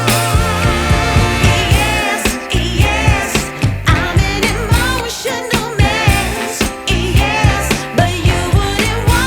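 Background music: a sung song with a steady drum beat.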